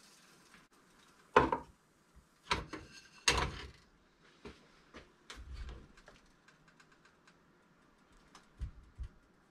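Metal cookware clattering at the stove: a metal utensil knocking against a saucepan in three sharp clanks, the last one ringing. These are followed by a duller knock and two light knocks near the end.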